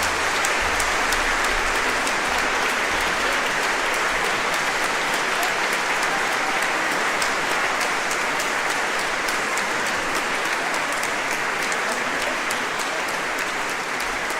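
Large crowd applauding, a dense steady clapping that eases off slightly near the end.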